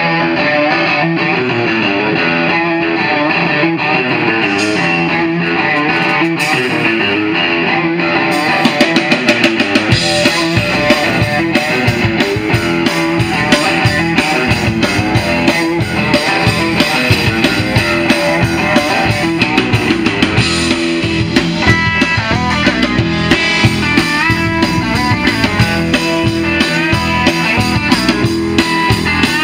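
Live blues band playing through a PA. Electric guitar leads, and the drum kit comes in with a steady beat about a third of the way through.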